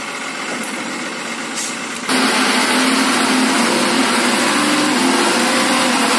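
Diesel engine of a log-laden Tata truck, idling at first, then running noticeably louder and steady from about two seconds in as the loaded truck pulls forward up the muddy track.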